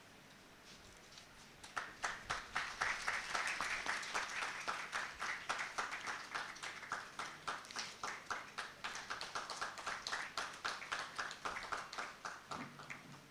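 Audience applauding. The clapping starts about two seconds in and thins out near the end.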